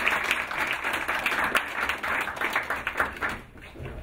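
Small audience applauding, the clapping dying away about three and a half seconds in.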